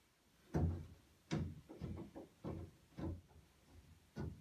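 A series of short clunks and knocks, about seven, as the metal parts of a car's convertible top frame are handled and fitted together.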